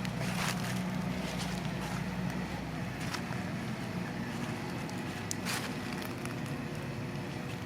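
Small electric motor of an RC off-road crawler humming steadily, easing off after about three seconds, with crackling and a few sharp knocks from the crawler's tyres and chassis on rough ground.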